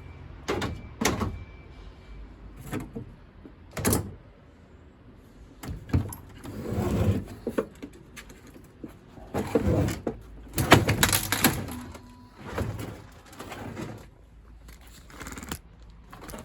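Knocks, clatters and scraping as boiler parts are handled and moved about during dismantling, with the loudest clatter about ten to eleven seconds in.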